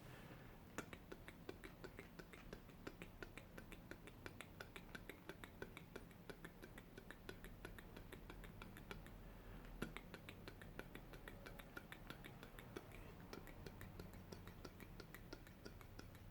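Faint, rapid close-miked clicking, several sharp clicks a second, as in an ASMR trigger.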